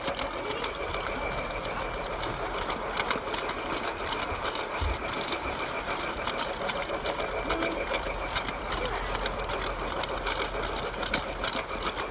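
Small battery-powered toy train running close up, its motor whirring steadily with rapid, even clicking from the gears and wheels.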